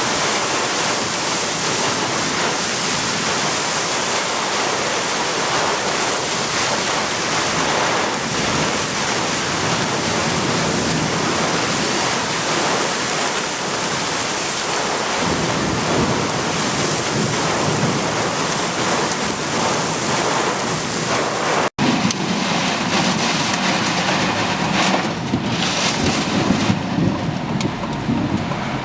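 Heavy rain pouring down in a steady, loud hiss. About three-quarters of the way through, the sound cuts briefly and comes back as a lower, rougher rushing noise.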